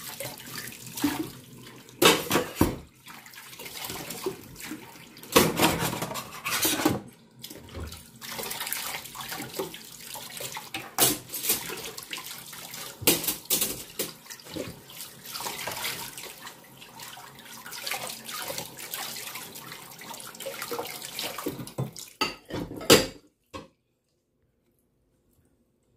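Water running from the tap into a stainless steel sink while dishes are washed by hand, with a sponge scrubbing a metal plate and loud clatters of dishes now and then. It all stops suddenly about two seconds before the end.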